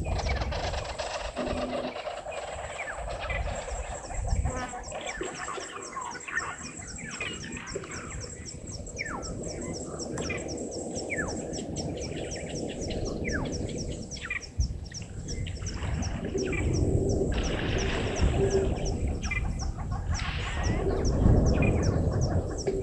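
Wild birds calling at a waterhole: many short, falling whistled notes, over an even, fast, high ticking and a low rumbling background that swells near the end.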